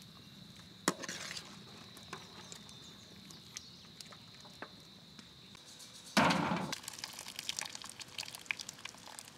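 Steel ladle knocking and scraping against a large cooking pot of boiling mutton broth as pieces of meat are stirred and lifted out. The knocks are scattered at first, then a louder clatter comes about six seconds in, followed by a run of small clinks.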